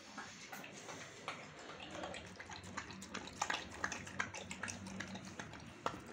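A dog eating wet rice mash from a metal bowl: sloppy wet chewing and lapping, with many short sharp clicks that come thickest and loudest about halfway through.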